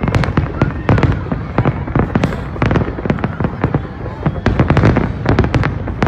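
Fireworks display: a rapid, continuous barrage of shell bursts and crackling bangs, several per second, over a dense low rumble.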